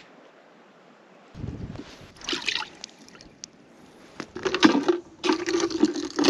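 Water sloshing and splashing in several irregular bursts, the loudest about four and a half to six seconds in.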